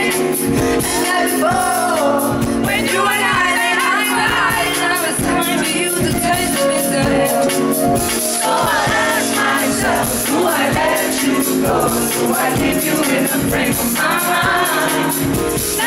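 Live concert music: a woman singing a melodic lead vocal into a handheld microphone over a band with steady bass notes and a regular beat.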